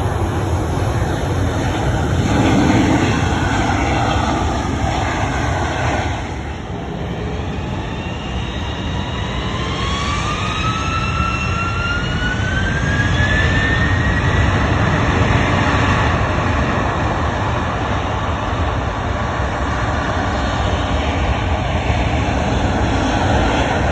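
Airliner jet engines running with a steady low rumble; partway through, a turbine whine rises in pitch and then holds as an engine spools up.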